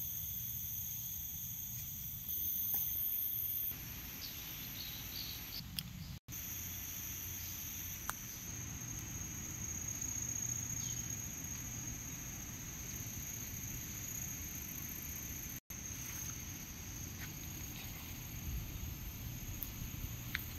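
Tropical rainforest insect chorus: a steady, high-pitched drone of several constant buzzing tones over a low rumble of wind and handling noise. It breaks off for an instant twice.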